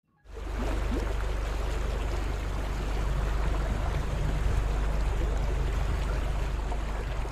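Steady rushing, water-like noise with a deep rumble underneath, starting suddenly just after the start.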